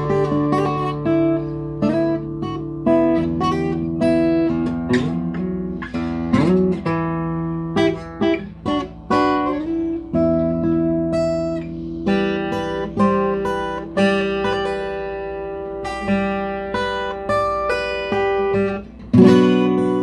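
Guitar being played solo, picked notes and ringing chords with a few sliding notes about a third of the way in, and a sharply struck chord near the end.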